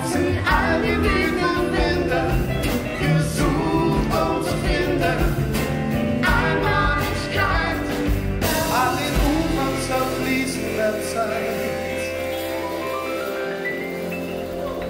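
Live band playing with voices singing over acoustic and electric guitars, keyboard and drums. About eight seconds in the drums stop and the band holds a closing chord that slowly fades.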